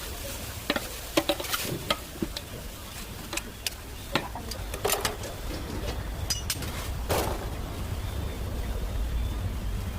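Metal cooking utensils clinking, knocking and scraping against a pot or pan in irregular sharp strikes while food is stirred, over a steady low rumble.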